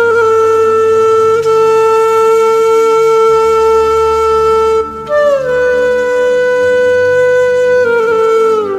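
A wind instrument holds two long notes: the first lasts about five seconds, and the second starts a little higher, slides down and falls away near the end. A soft, steady musical drone plays beneath.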